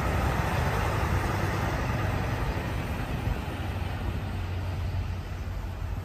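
Semi-trailer truck driving along the road and away: a steady low engine drone with tyre and road noise that slowly fades.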